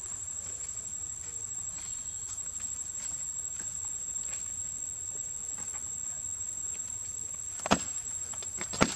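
Insects droning with a steady, high-pitched buzz. Two sharp clicks stand out near the end, about a second apart.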